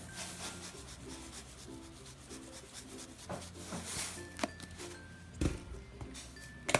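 Coarse kosher salt pouring from its box onto diced salad in a bowl: a soft gritty hiss, strongest about four seconds in, over quiet background music. A dull thump comes about five and a half seconds in.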